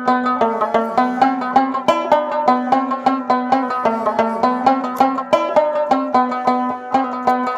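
Background music: a fast, steady melody on a plucked string instrument with quick repeated notes over a lower repeating line.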